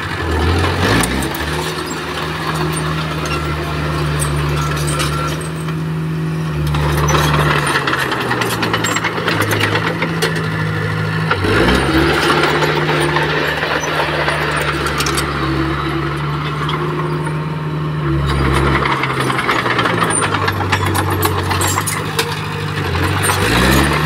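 Komatsu D20P crawler bulldozer's diesel engine revving up under load three times, each time holding high for about five seconds and then dropping back to a lower speed, with a clattering noise over it as the dozer pushes stone.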